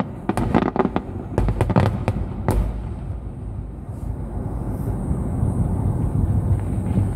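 Aerial firework shells bursting, a rapid series of about eight sharp bangs in the first two and a half seconds. A steady low rumble follows.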